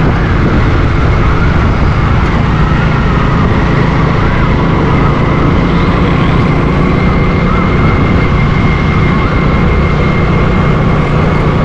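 Motorcycle cruising steadily: a low, even engine drone with a thin steady high whine, under heavy wind rumble on the microphone.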